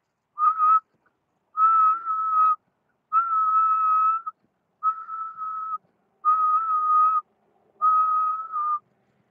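A person whistling: a short note, then five held notes of about a second each, all at nearly the same steady pitch, with short pauses between them.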